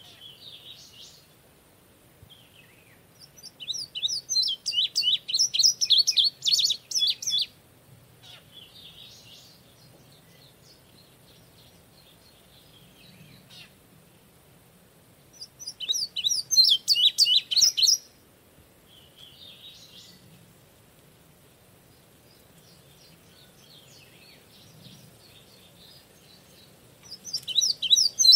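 Indigo bunting singing: three loud songs of quick, high, sharp notes, each a few seconds long and roughly ten seconds apart, with fainter bird song between them.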